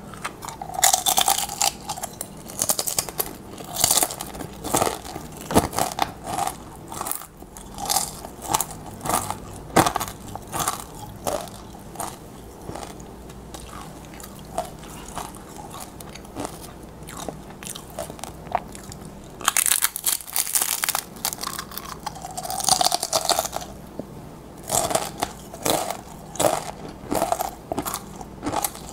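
Tortilla chips being bitten and chewed, crunching over and over. Fresh bites with dense crunching come right at the start and twice more about two-thirds of the way through.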